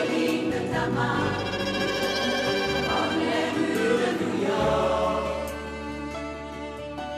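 Large mixed choir of men's and women's voices singing in harmony with instrumental accompaniment, over low held bass notes that change every second or so. The music gets softer about five seconds in.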